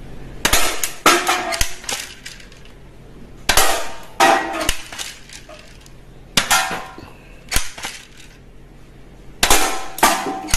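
Toy rifle shots, several sharp cracks spaced a second or two apart, mixed with metallic clanks as aluminium drink cans are hit and knocked off their stacks.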